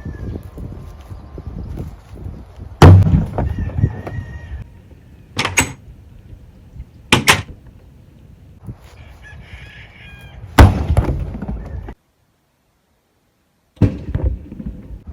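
A series of hard impacts, five sharp blows in all, over a low rumbling background. Between the blows a bird calls with held, pitched notes, and near the end the sound cuts out completely for about two seconds.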